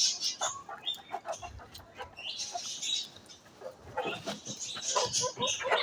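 Domestic chickens and chicks clucking and calling softly as they feed, with scattered light clicks.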